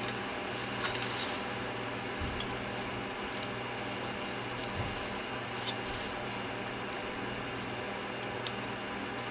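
Small handling noises from an opened plastic cordless phone handset as its contacts are cleaned: a brief rubbing about a second in and scattered light clicks, over a steady low hum.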